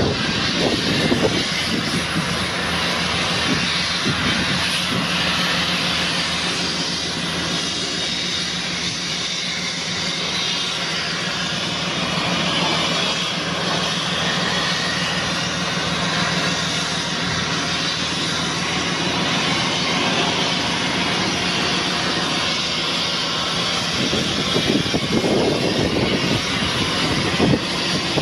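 Cat D7E LGP waste-handler crawler dozer's diesel engine idling steadily: a constant low hum under a broad hiss of engine and air noise, turning a little louder and rougher near the end.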